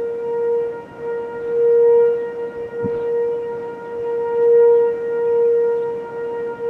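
Outdoor tornado warning siren sounding a steady tone at one pitch, its loudness swelling and fading.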